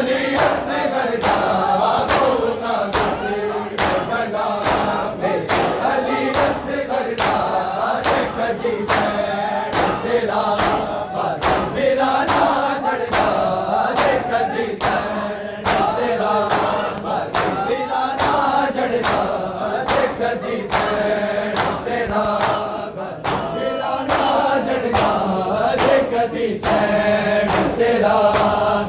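A crowd of men chanting a nauha, a Shia mourning elegy, together, over a steady beat of open-hand chest-beating (matam), a little under two slaps a second.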